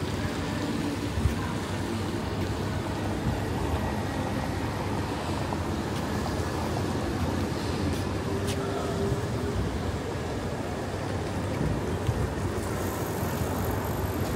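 City street ambience: steady traffic noise from passing cars.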